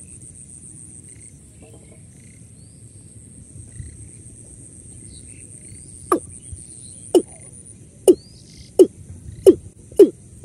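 Male watercock calling: a series of low notes, each dropping sharply in pitch, starting about six seconds in and coming faster and louder with each note.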